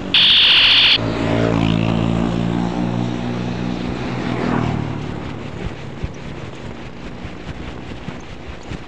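A handlebar electronic police-siren horn sounds a loud, high, steady tone and cuts off about a second in. Then a motorbike's engine passes close by, loudest at about four and a half seconds, and fades into tyre and road noise with small rattles.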